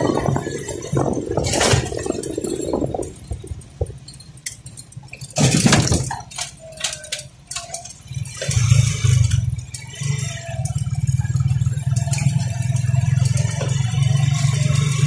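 Motorcycle riding along a road: rushing noise and rattles, a loud knock about five and a half seconds in, then the engine's low steady drone from about halfway on.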